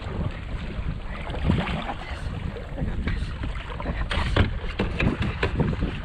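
Wind buffeting the microphone and water sloshing around a fishing kayak, with a few sharp splashes and knocks about four seconds in and again a little later, as the landing net goes into the water beside a hooked salmon thrashing at the surface.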